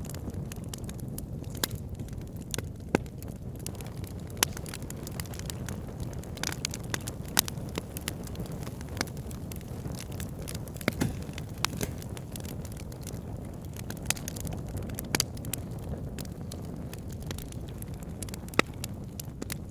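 Wood fire burning in a fireplace: a steady low rumble of flames with irregular crackles and pops, a few of them sharply louder.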